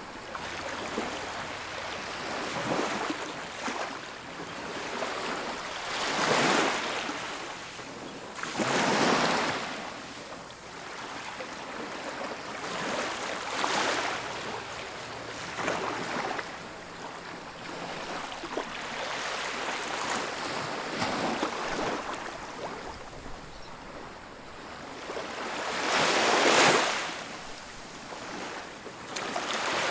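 Ocean surf breaking and washing up a beach: a steady hiss of water that swells and falls with each wave, several louder surges, the loudest near the end.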